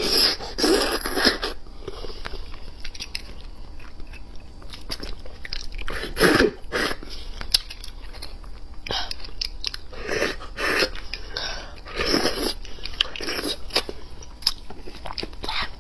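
Close-miked eating: marrow sucked and slurped out of braised beef bone sections, and chewing, in irregular loud bursts a few seconds apart.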